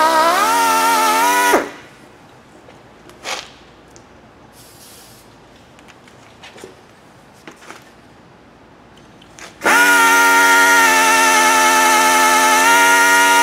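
Right-angle drill running under load as it drills out a broken exhaust manifold bolt through a drill-guide template, its motor whining at a steady pitch that rises slightly. It stops about a second and a half in, a few light knocks follow while it is repositioned, and it starts again about two-thirds of the way through.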